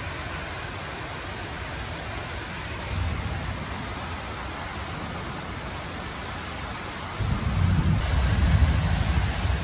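Heavy rain pouring steadily. A low rumble swells up about seven seconds in and lasts a couple of seconds.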